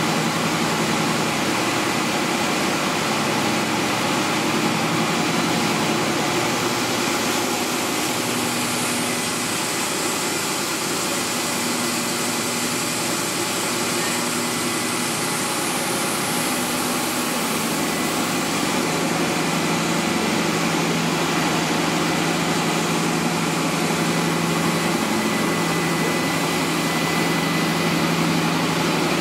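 Plastic reprocessing extrusion line running in a factory: a steady machine drone with a constant low hum and a thin high whine, its pitch shifting slightly about two-thirds of the way through.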